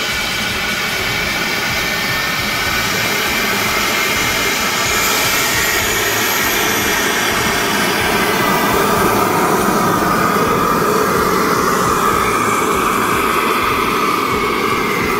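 K45G4 model jet turbine in a Freewing F-22 Raptor RC jet running as the plane taxis: a steady jet rush with a high whine, getting slightly louder. A faint high whine slides down in pitch about five to eight seconds in.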